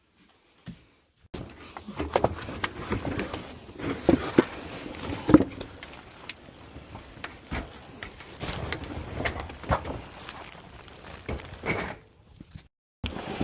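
Irregular knocks, clicks and rustling of objects being handled, starting about a second in after near silence and breaking off briefly near the end.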